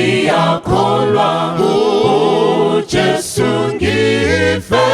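A cappella choir singing a hymn in several voice parts, with short breaks between phrases.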